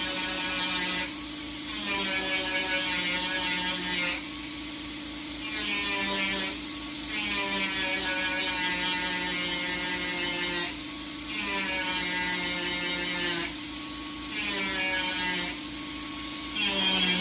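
MIG welder filling holes in sheet metal: a string of welding bursts, each a second to a few seconds long, with short pauses between them. A steady hum runs underneath throughout.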